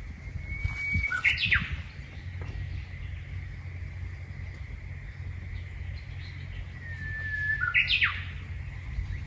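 Japanese bush warbler singing its spring song twice, about six seconds apart: each phrase is a long, level whistled note followed by a quick rising-and-falling flourish. A steady low rumble lies underneath.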